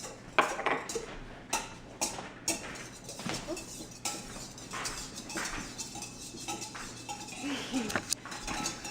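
Kitchen utensils clinking and tapping against a mixing bowl while pancake batter is put together: a run of sharp, irregular knocks and clinks, the loudest about half a second in.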